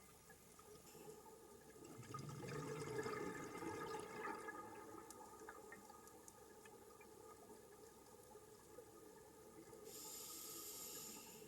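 Scuba diver breathing through a regulator underwater. About two seconds in, an exhale sends bubbles gurgling out for about three seconds. Near the end comes a short hiss of the next breath drawn through the regulator.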